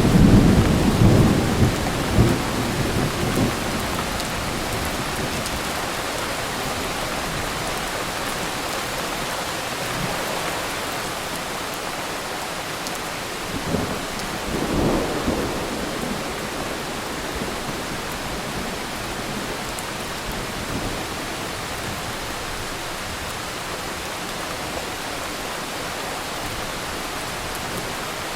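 Steady rain with thunder: a low rumble fades away over the first few seconds, and a second, shorter rumble comes about halfway through.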